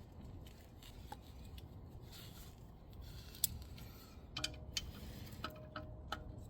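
Scattered light clicks and taps over a low background hum. They come closer together in the second half, some with a short ringing tone.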